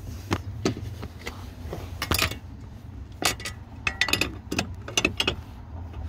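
Sharp metallic clicks and clinks of a door-hinge spring compressor tool and its compressed coil spring being worked into a Chevy Silverado door hinge. About a dozen clicks, some in quick clusters, over a steady low hum.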